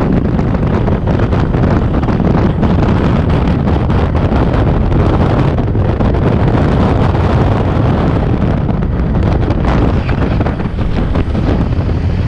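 Wind buffeting the microphone of a camera on a moving motorcycle at road speed, a steady low rumble with engine and road noise under it.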